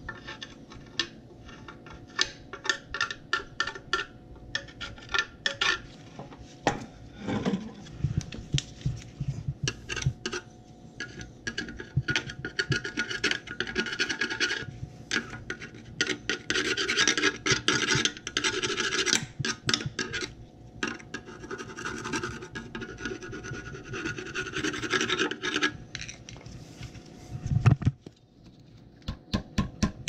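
A screwdriver blade scraping old gasket material off a boiler's metal burner plate, in runs of quick back-and-forth strokes with short pauses between them. There is a loud thump near the end.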